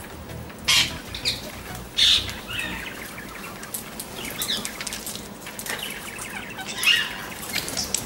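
Parrots calling: harsh, high calls and chatter, with three loud calls, just under a second in, about two seconds in, and near the end.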